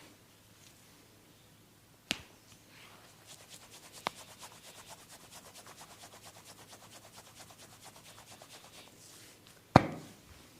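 Hands rubbing skin or hair fast and evenly during a massage, with two sharp clicks before the rubbing starts and a loud sharp knock near the end.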